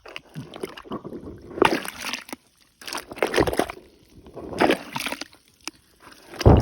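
A metal pole plunged again and again into a wet, muddy hole, squelching and sloshing with each stroke, about every second and a half.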